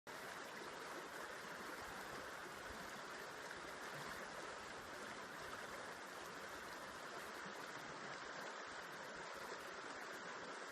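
River water flowing over rocks: a steady rushing and babbling with no breaks.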